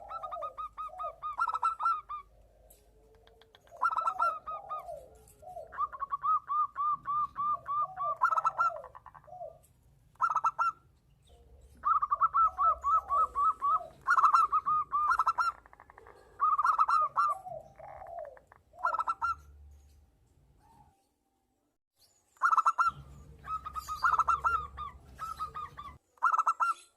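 Zebra doves (perkutut) calling back and forth: rapid trilled coos near 1 kHz, repeated in phrases and interleaved with lower, falling notes. The calling stops for about two seconds around 21 s in, then resumes.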